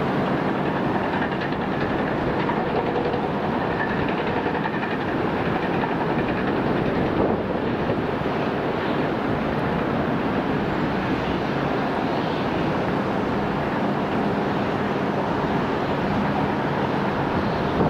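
Steady engine noise from a landing Airbus A350-941 airliner's Rolls-Royce Trent XWB turbofans, a loud, even rush with faint humming tones in it.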